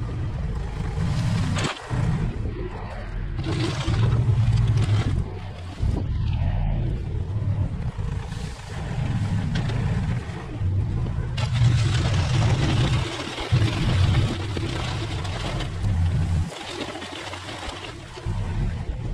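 Engine of an earth-moving machine working as it pushes dirt, its sound rising and falling in loudness as the load changes.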